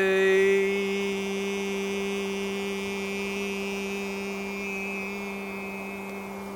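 A man's voice holding one long, steady, pitched 'eee' vowel: the high 'E' that closes a 'U-A-E' toning sound, said like the word 'why', in a qigong voice exercise. It slowly fades and stops near the end.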